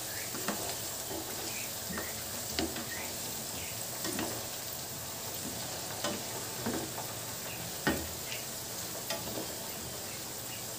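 Cubed potatoes sizzling steadily as they fry in oil in a nonstick pan, with scattered clicks and knocks of a wooden spatula stirring them. The potatoes are fried enough to be lifted out.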